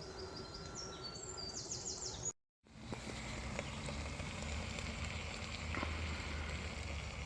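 A small bird chirping in quick runs of short notes for the first two seconds, over a steady background hiss. After a brief cut-out the hiss and a low rumble go on, with a few faint clicks.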